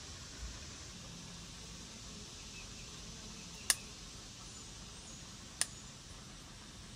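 Two short, sharp clicks about two seconds apart over a steady faint hiss of outdoor background.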